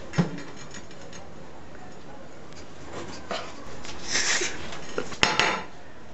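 Kitchenware being handled at a metal cooking pot: a sharp knock near the start, then scraping, and a quick clatter of knocks about five seconds in.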